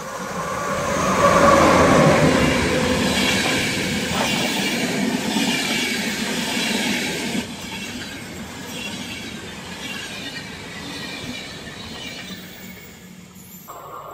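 Electric passenger train passing through at speed under overhead wires: the rush and rumble swell as the locomotive goes by, loudest about a second or two in, then the coaches' wheels clatter steadily over the rails and the sound eases off as the last coach passes.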